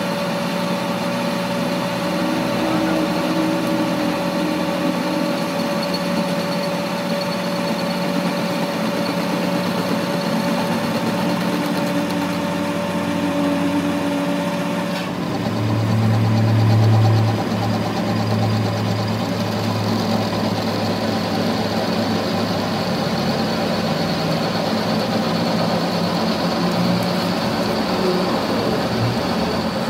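Metal lathe running steadily while a cutting tool turns down a welded steel CV axle shaft. The machine hum shifts about halfway through, with a louder low hum for a second or two just after.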